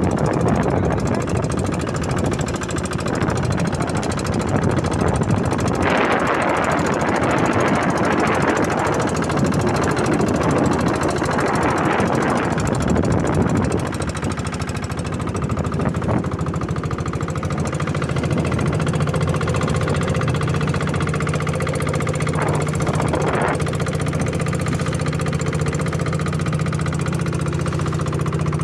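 A small fishing boat's engine runs steadily with a rough, knocking beat. For the first half a rushing noise is mixed in; from about halfway the steady engine drone comes through clearly.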